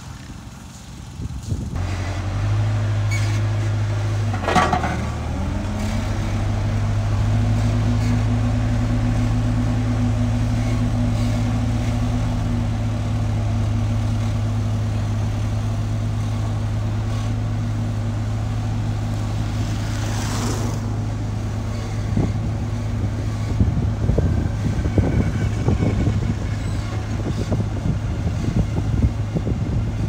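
Dynapac road roller's diesel engine running at a steady, even pitch as it drives over the earth subgrade, with irregular rattling in the last few seconds.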